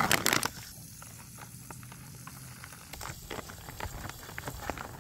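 A foil-lined freeze-dried meal pouch being torn open, with a short burst of ripping at the start, then scattered crinkles, and the packaging crinkling and crackling again from about three seconds in as it is pulled open.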